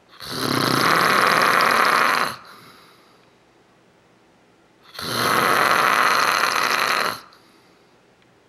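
A sleeping man snoring loudly: two long snores of about two seconds each, the second starting about five seconds after the first, with quiet between.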